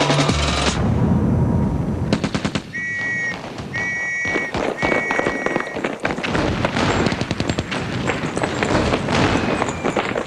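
Rapid machine-gun fire, a dense rattle of shots. About three seconds in, three short high-pitched tones sound over it, one after another.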